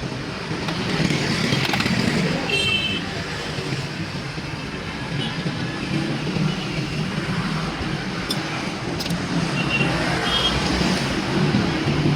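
Steady road traffic noise from passing vehicles, with a couple of brief high-pitched tones.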